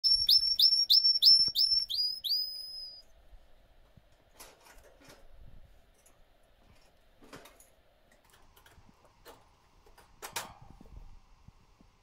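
Canary singing a rapid run of about eight repeated high notes, each sliding down and then holding, at about three a second, for the first three seconds. A few faint short clicks follow.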